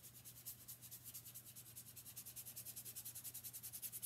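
Stencil brush scrubbed rapidly over the edges of a pumpkin-shaped sign, distressing them with chalk paste: faint, even scratchy strokes about ten a second.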